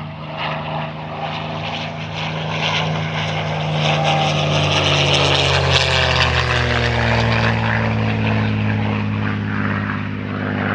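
Deep piston-engine drone with several steady tones at once. It grows louder over the first few seconds, and some of the higher tones slide down in pitch around the middle.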